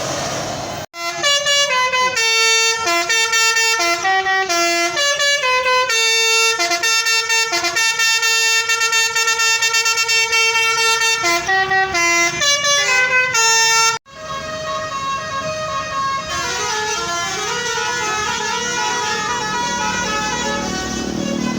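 Basuri multi-tone bus horns ("telolet") playing a tune: several held notes sound at once and change pitch in steps. After a sudden break about 14 seconds in, a hazier horn tune follows with sliding pitches.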